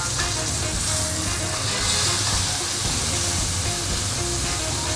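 Whole beef tenderloin tied with string sizzling as it sears in hot foie gras fat in a cast-iron skillet, being turned with tongs; the sizzle grows louder about two seconds in. Background music with a steady low beat plays under it.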